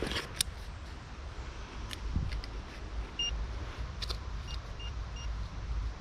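Metal detector giving four short beeps at one pitch in the second half, among a few sharp clicks and knocks, over a low steady rumble.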